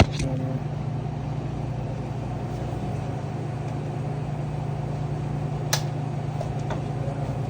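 Steady low machine hum, with a sharp click about six seconds in.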